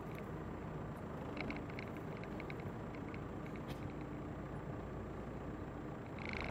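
Ursus C-392 tractor's four-cylinder diesel engine running steadily under load while pulling a Strumyk 2.4 disc harrow, with a few light clicks from the harrow.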